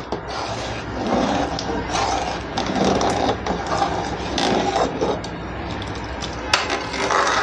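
A spoon scraping around the bottom of a pot as milk kheer is stirred to keep it from sticking and burning. The scraping is continuous and uneven, with a few sharp knocks of the spoon against the pot.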